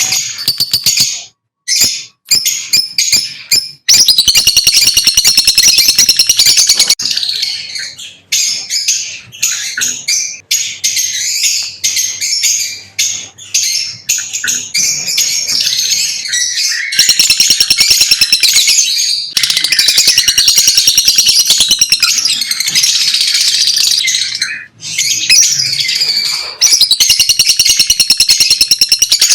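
Lovebirds chirping, high-pitched and rapid in dense, near-continuous runs, broken by a few short pauses.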